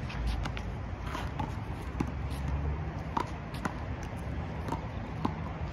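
Irregular sharp slaps of a small rubber handball striking the concrete wall and court, about one every half second, with scuffing footsteps, over a steady low rumble.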